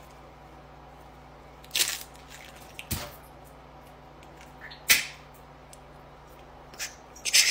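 A handful of sharp cracking pops, spaced a second or two apart, as she works and bends her elbow joint: joint cracking. The loudest pops come about two and five seconds in.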